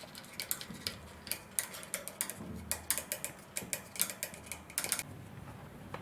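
A quick, irregular series of light clicks and taps, several a second, stopping about five seconds in.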